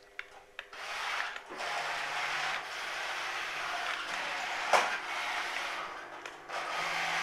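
Radio-controlled car drifting on bare wheels with the tyres stripped off, the wheels sliding and scraping to give a steady rough rasping noise. A single sharp knock stands out about two-thirds of the way through.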